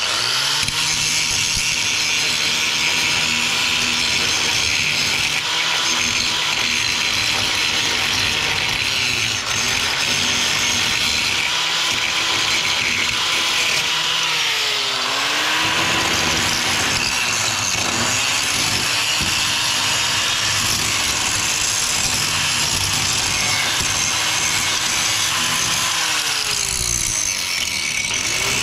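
Corded angle grinder running at speed, its disc grinding the steel of a trailer's jacking beam. The motor whine dips in pitch a few times as the disc is pressed harder into the metal.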